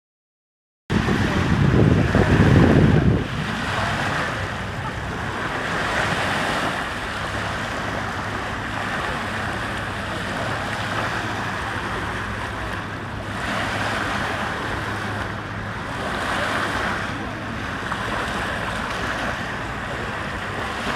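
Wind buffeting the microphone over a steady rush of lake water and a faint low hum. It starts abruptly about a second in, with the heaviest gusts in the first couple of seconds.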